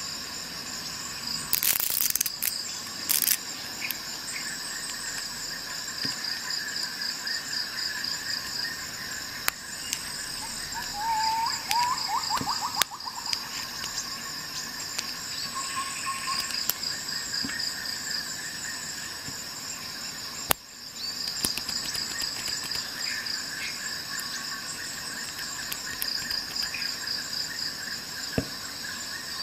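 Crickets chirping steadily in a continuous high trill, with a few sharp clicks near the start as the ratchet and socket are handled.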